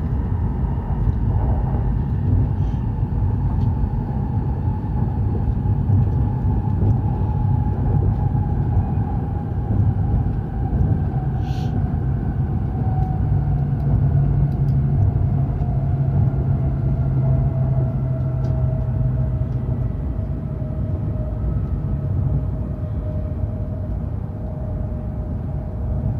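E7/W7-series Hokuriku Shinkansen train running at speed: a steady low rumble, with a faint whine that falls slowly in pitch as the train slows on its approach to a station. A single brief click about halfway through.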